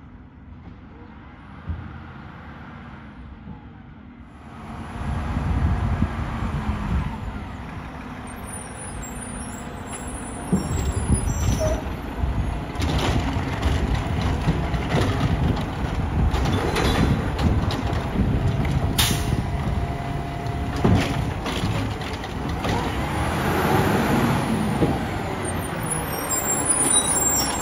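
Mack MRU refuse truck's diesel engine, faint at first, then growing much louder about four seconds in as the truck drives up and stops at the curb. Air-brake hisses and several sharp knocks follow while it runs beside the carts.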